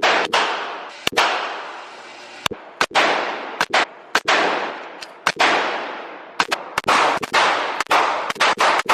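Gunshots at a shooting range: about fifteen shots at uneven spacing, some in quick pairs, each followed by a ringing echo that fades over about a second.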